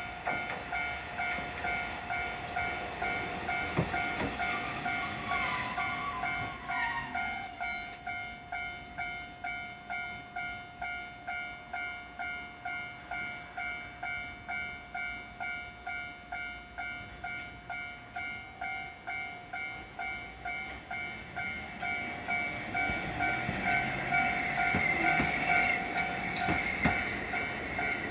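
Japanese level-crossing warning bell at a Hankai Tramway crossing, clanging steadily at about two strokes a second. A brief falling squeal comes about five seconds in, and a tram rumbles past near the end.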